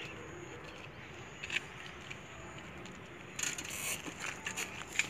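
A bicycle being handled and mounted by two riders: a single click, then a brief rattle about three and a half seconds in, followed by a few light clicks, over a faint steady background hiss.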